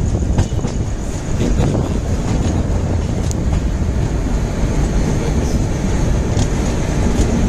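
Steady rumble of a passenger train coach's wheels running on the rails, heard from the open coach door with wind on the microphone, with a few sharp clicks from the wheels over rail joints.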